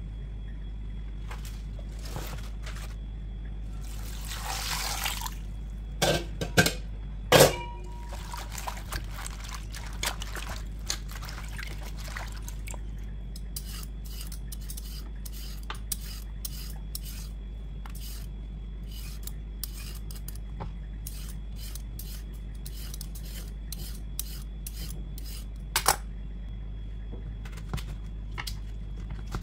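Kitchen prep sounds over a steady low hum: a short rustle, a few sharp knocks, then a long run of quick, light scraping clicks as a Y-shaped vegetable peeler strips the skin off a white radish (mooli), with another sharp knock near the end.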